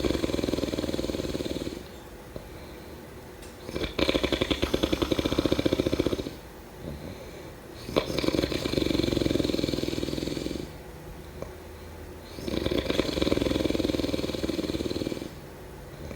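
Snoring in a steady rhythm: four snores, about one every four seconds, each a two- to three-second rapid rattle, with quieter breathing between them.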